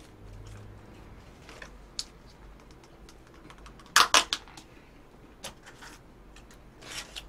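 Sharp plastic clicks and taps from a plastic spoon and a small plastic cup being handled, with a quick burst of several loud clicks about four seconds in and scattered single clicks around it.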